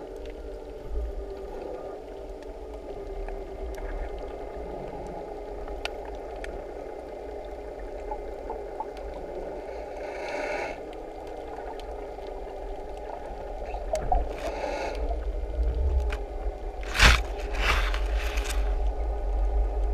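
Underwater ambience recorded through a camera's waterproof housing on a breath-hold spearfishing dive: a muffled low rumble with a faint drone that wavers in pitch, and a few brief swishing rushes in the second half.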